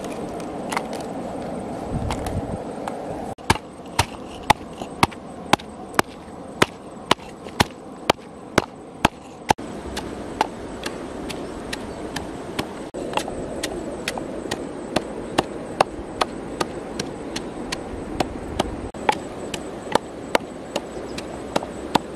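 Wooden pestle pounding chillies, garlic and salt in a mortar: sharp knocks about two a second, starting a few seconds in and keeping an even beat, over a steady background rush.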